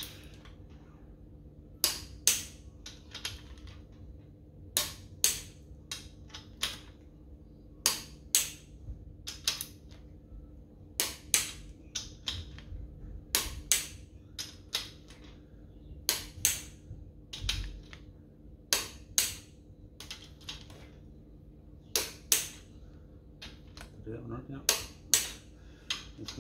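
Click-type torque wrench clicking as each main bearing cap bolt of a Holden 253 V8 block is pulled up to 70 ft-lb. Sharp clicks come every two to three seconds, often two close together.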